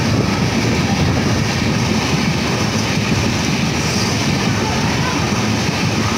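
Coaches of a Duronto Express passing at speed: a steady, loud rush and rumble of wheels on the rails.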